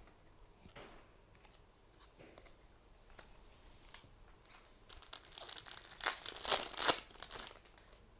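Trading cards being handled: a few light clicks, then a louder stretch of crinkling and rustling from about five to seven and a half seconds in.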